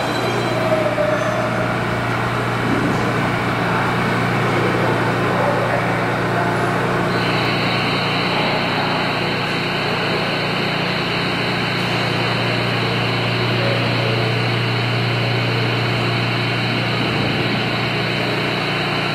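New York City subway train standing in the station with its equipment running, giving a steady low hum. About seven seconds in, a steady high-pitched hiss joins it.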